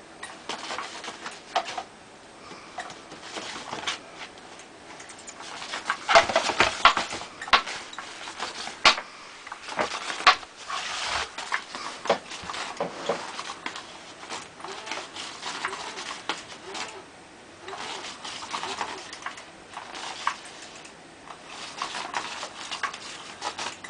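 A small cat playing with a toy: irregular scratching, tapping and rustling, busiest and loudest from about six to thirteen seconds in.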